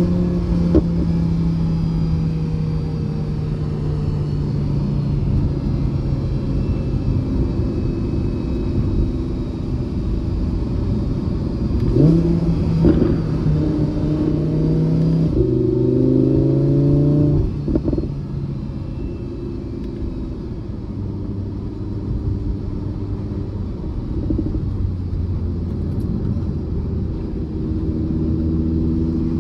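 Audi R8 V10 Spyder's 5.2-litre V10 running at moderate road speed, heard from inside the cabin along with tyre and road noise. The revs jump about 12 seconds in and change again around 15 to 17 seconds, then the engine note drops lower and quieter after about 18 seconds.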